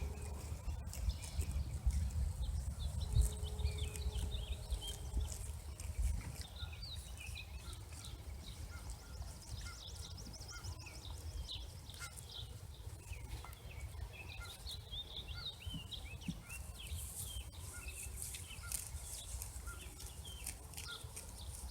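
Swallows twittering in many quick, short chirps, over the low rumble of a distant train that fades out about six seconds in.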